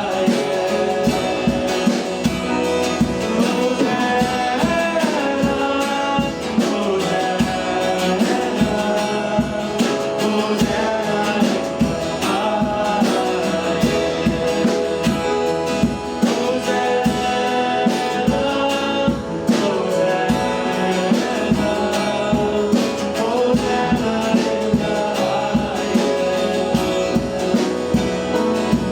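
Band music with singing over a steady drum beat, typical of congregational worship at a church service.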